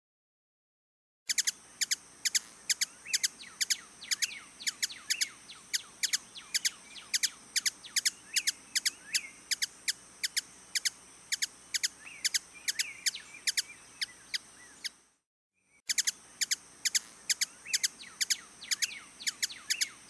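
Hummingbird twittering: a fast run of high, sharp chirps, about five a second, starting about a second in and pausing briefly about fifteen seconds in.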